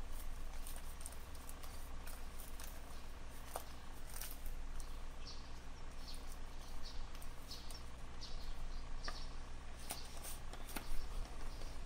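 Damp potting soil being picked and crumbled by hand off a root-bound hibiscus root ball: soft crackling, rustling and scattered small clicks as clumps break away and fall onto newspaper, with a sharper knock about eleven seconds in.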